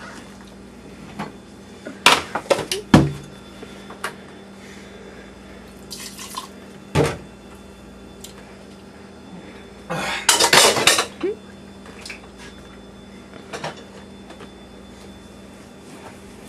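Dishes and utensils clattering on a kitchen counter: scattered knocks a couple of seconds in and again around seven seconds, then a busier burst of clatter about ten seconds in, over a steady low hum.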